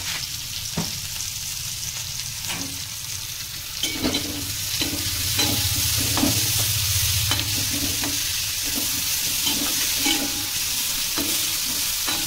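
Sliced vegetables sautéing in butter in a wok, sizzling steadily, while a slotted metal spatula stirs and scrapes them against the pan in repeated strokes. The stirring gets louder about four seconds in.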